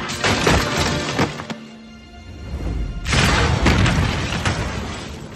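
Action film score with crashing impact effects: several sharp hits in the first second and a half, then a long, heavy crash about three seconds in.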